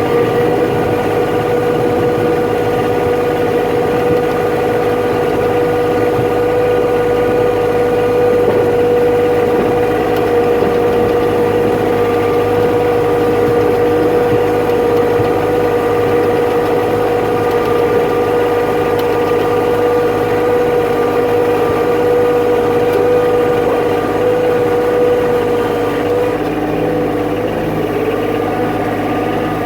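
An engine running steadily at a constant speed, with a steady hum that shifts slightly near the end.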